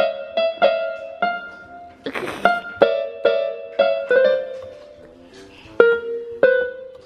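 Electronic keyboard played by a baby pressing keys: single notes struck one at a time at an irregular pace of about two or three a second, mostly the same few middle-high notes, each dying away quickly. There is a pause of about a second past the middle before two more notes.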